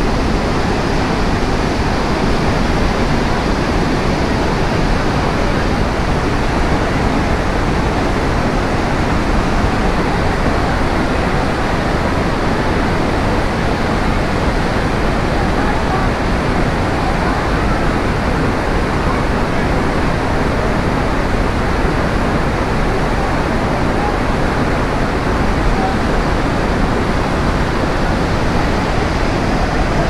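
Iguazu Falls: the steady, loud rush of a huge volume of water falling and churning, unbroken throughout.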